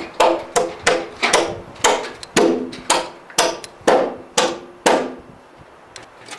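Hammer driving nails, about a dozen ringing blows at roughly two a second, which stop about five seconds in.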